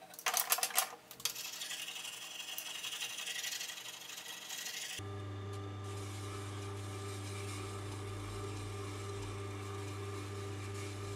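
Steel scraped by hand with a file in rough strokes, loudest just after the start. About five seconds in it gives way abruptly to the steady hum of a Tormek sharpening machine's motor, running while the axe's saw-blade steel is honed on its leather wheel.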